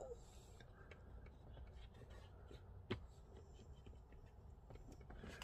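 Near silence with faint rubbing and light taps of a liner mat being worked into a car's storage compartment by hand, and one sharper click about three seconds in.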